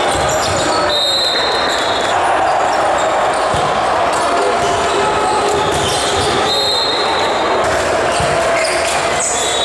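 The steady din of a big indoor volleyball hall with matches going on: many voices, and balls being hit and bouncing on the hard court. Referee whistles blow about a second in, around seven seconds in, and again at the end.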